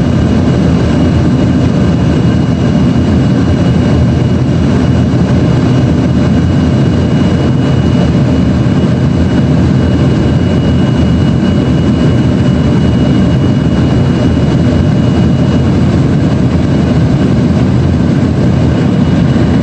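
Steady cabin noise of an Embraer ERJ-135 regional jet in the climb: the rush of airflow and the hum of its turbofan engines heard from inside the cabin, with a faint high whine held steady.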